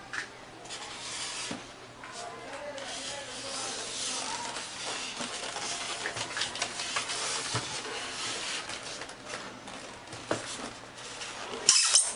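Styrofoam packaging rubbing and scraping against a cardboard box as it is slid out and handled, then a few loud sharp knocks near the end as the radio transmitter is pulled from its foam tray.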